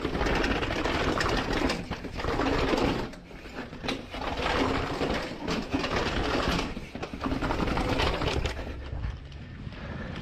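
Mountain bike clattering down concrete stairs: a fast, dense rattle of the tyres hitting the steps, with the chain and suspension knocking. It comes in runs with brief lulls and eases off near the end as the bike rolls onto smooth pavement.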